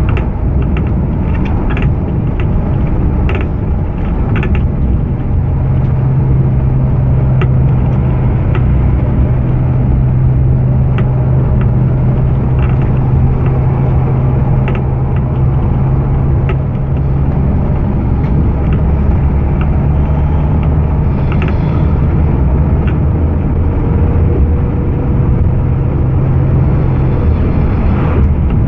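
Bus engine running steadily on the move, heard from inside the cabin, with a low drone that holds one pitch from about five seconds in until near the end. Frequent small rattles and clicks from the interior fittings sound over it.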